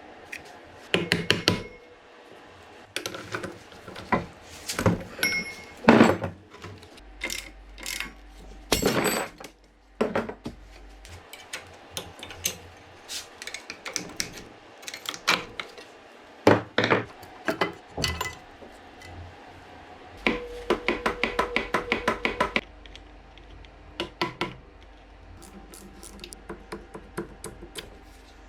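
Hand tools and metal engine parts clinking and knocking, in quick irregular strikes. About twenty seconds in comes a rapid run of evenly spaced taps, roughly eight a second.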